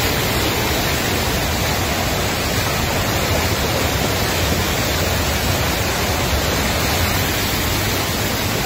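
Muddy floodwater rushing in a torrent down a steep dirt track: a loud, steady, unbroken rush of water during a flash flood.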